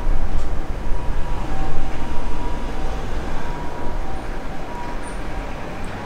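Diesel railcar running on the tracks: a low rumble with faint high squeals that come and go.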